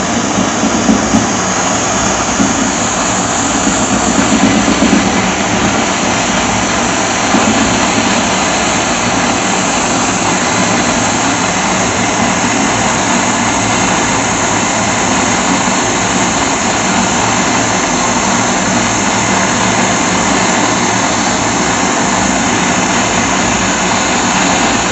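Jeweller's gas torch blowing a steady, loud hiss of flame into a charred cedar-wood block to melt gold alloy scrap with borax flux.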